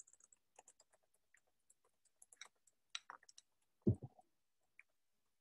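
Faint, scattered clicking of keys on a computer keyboard, with a brief low thud about four seconds in.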